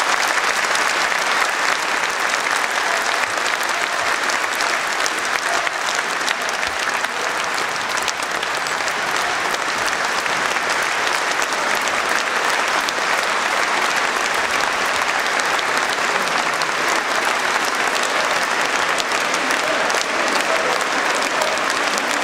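A large audience applauding steadily and without a break at the close of a speech.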